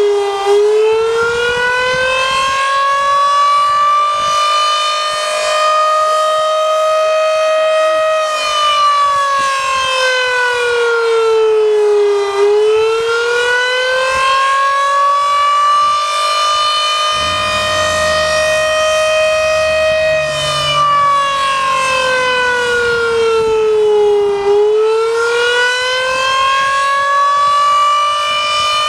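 Model 5 air-raid siren sounding the Attack signal: a loud wail that climbs for several seconds, holds high, then slides back down, starting over about every twelve seconds.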